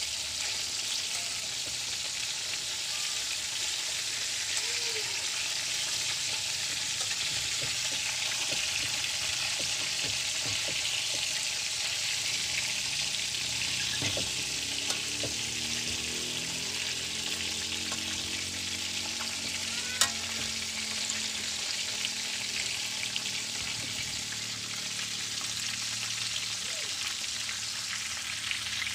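Chicken pieces frying in hot oil in a metal pan, a steady sizzle as they are turned with metal tongs. One sharp click about twenty seconds in.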